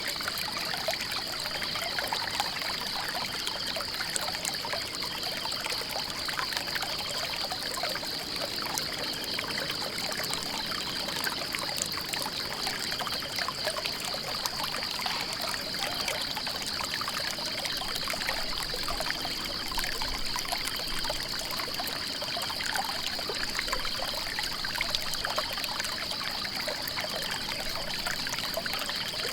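Water trickling and running steadily in a small stream, with a continuous high-pitched trill over it.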